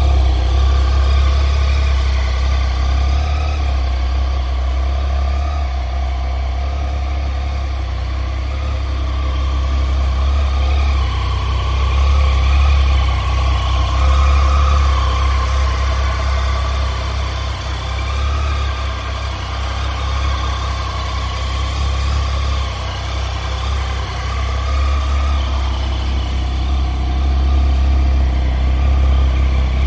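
Triumph Tiger 800 XCX's three-cylinder engine idling steadily, with a low, even hum throughout.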